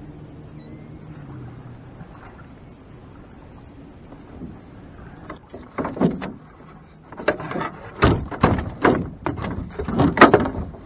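A netted catfish being swung aboard a small boat, with a run of loud thumps and knocks on the hull and deck from about halfway through as the fish and landing net hit the boat and the fish flops.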